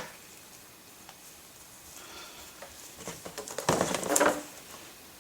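Leather belts being handled: faint small clicks, then a burst of rustling and rubbing of leather straps about three and a half seconds in, lasting about a second.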